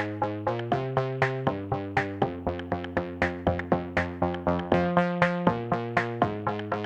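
Background music: an electronic instrumental with a quick, even plucked beat over sustained chords.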